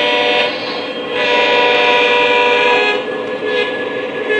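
The Lionel Legacy model Fairbanks-Morse Trainmaster diesel's onboard sound system blowing its air horn in long, steady blasts, with a short break about a second in and a softer stretch near the end.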